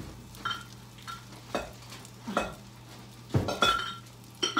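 Food sizzling in a frying pan over a gas burner, under a steady low hum. Irregular short, sharp clicks and knocks break in about eight times, the loudest a cluster about three and a half seconds in.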